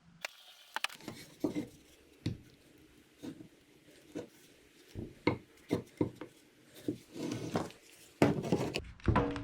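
Wooden boards being handled for a glue-up: a string of irregular knocks and clatters as the pieces are moved, set down and fitted together, busiest and loudest near the end.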